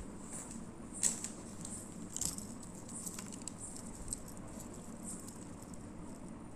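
Faint handling of metal jhumka earrings: a few light clicks and jingles as they are picked up, the clearest about one second and two seconds in, over a steady faint background hum.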